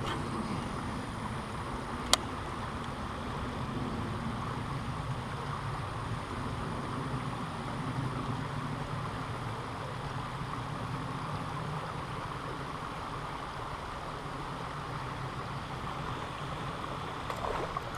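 Steady rush of flowing creek water, with one sharp click about two seconds in.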